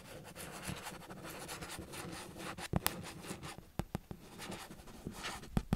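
Pen writing on paper on a clipboard close to the microphone: continuous scratchy strokes, with a couple of sharper clicks about three seconds in and near the end.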